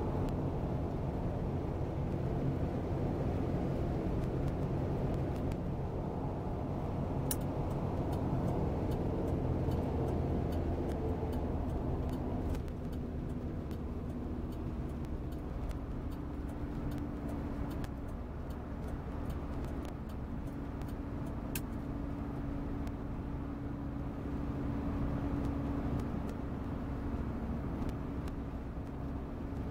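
Cabin sound of a 1975 Cadillac Sedan DeVille under way: the steady low rumble of its 500 cubic-inch V8 and the road, which becomes quieter about twelve seconds in as the car slows off the highway.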